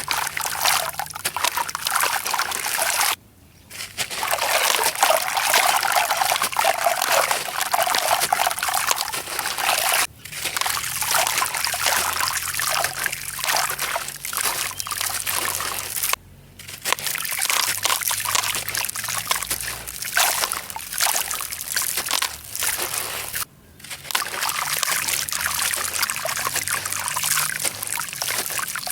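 Packed sand and concrete crumbling apart, a dense, continuous trickle of tiny crackles as grains and fragments break and fall, broken by four short pauses.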